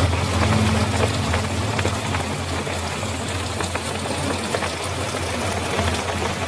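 Heavy rain falling steadily, with many small drop hits. A motor vehicle's engine hums low underneath and fades away within the first couple of seconds.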